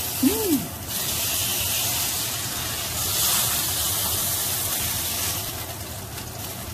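Sous-vide steak sizzling as it sears in a hot cast-iron skillet, a steady hiss of fat and juices on the iron. The sizzle swells about three seconds in as the steak is turned with tongs, and dies down near the end as it is lifted out of the pan. A short rising-and-falling tone sounds near the start.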